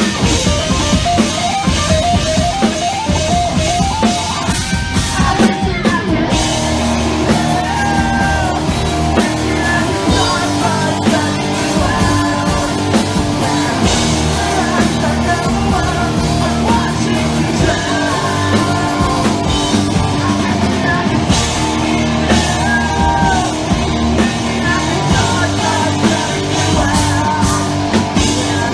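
Rock band playing live through a PA: electric guitar, bass and a drum kit with a singer. A climbing run of notes leads into the full band, which comes in about six seconds in.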